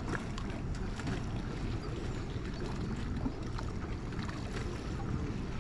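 Steady low wind rumble buffeting the microphone, with faint scattered clicks.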